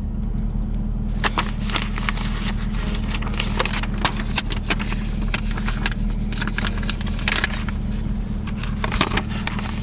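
A steady low car engine idle heard from inside the cabin, with irregular crackling and rustling clicks of a paper receipt being handled.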